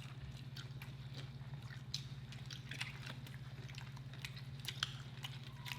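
Faint, scattered clicks and small crunches of burgers being eaten and handled at the table, with bacon being added to a burger, over a steady low hum.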